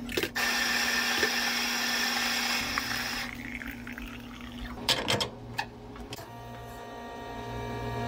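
Cafe espresso machine making a hot Americano: hot water rushing into a paper cup, a few sharp clicks about five seconds in, then the machine's pump humming steadily as espresso pours.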